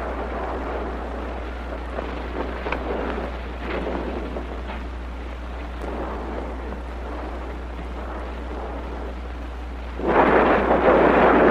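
Thunderstorm sound effect: steady rushing rain and wind, then a loud rolling burst of thunder about ten seconds in.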